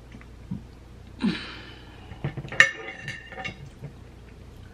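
King crab knuckle shell being worked apart by hand to pick the meat out, with small cracking and handling ticks, a brief murmur about a second in, and a sharp clink with a short ring, as of a utensil striking the dish, about two and a half seconds in.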